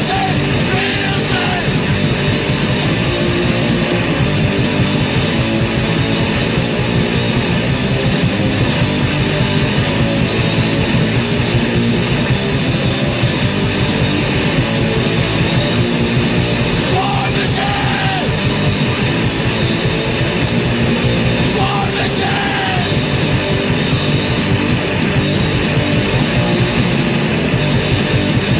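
Hardcore punk song playing: distorted electric guitars and drums with shouted vocals.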